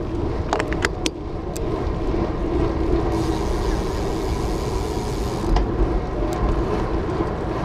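Riding noise on a road bike: wind buffeting the handlebar-mounted camera's microphone over tyres rolling on asphalt, a steady rumble. There are a few light clicks in the first second and a spell of hiss from about three seconds in to about five and a half.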